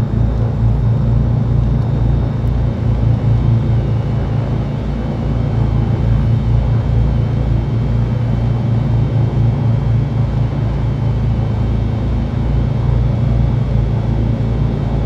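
Twin-engine Cessna 310Q's two piston engines idling: a steady low drone with a regular throbbing beat of about three pulses a second.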